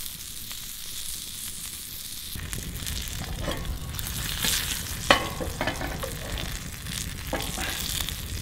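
Peppered mackerel sizzling in a frying pan over an open campfire: a steady frying hiss with scattered sharp pops, the loudest about five seconds in.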